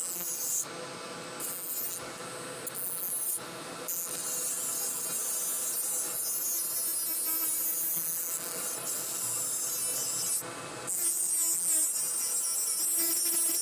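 Rasping, scraping noise of a tool working material. It breaks off briefly a few times in the first four seconds and again near the end, and otherwise runs steadily.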